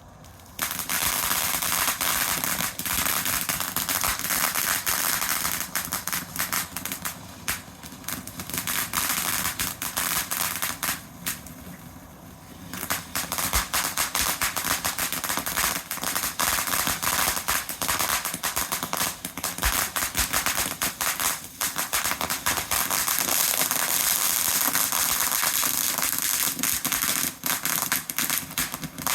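Fireworks going off in rapid crackling volleys: dense sharp reports start about half a second in, ease briefly around the middle, then carry on thick and fast.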